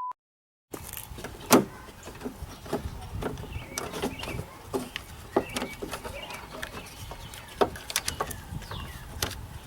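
Hand work on a truck's door latch assembly: irregular sharp clicks and knocks of the mechanism and parts being handled, with one louder knock about a second and a half in. A short beep cuts off right at the start, followed by a moment of silence.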